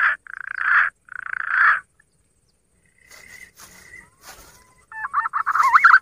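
Human mouth-call imitating green pigeons (punai): three hoarse, breathy calls in the first two seconds, a pause, then wavering whistled notes starting near the end.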